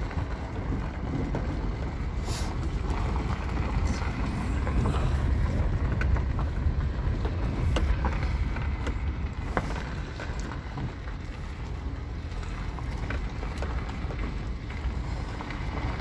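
Car driving, heard from inside the cabin: a steady low rumble of tyres and engine with wind on the microphone, and a few faint clicks.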